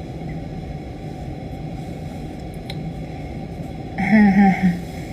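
Steady low background noise of a small room, then about four seconds in a young woman's voice, louder, briefly.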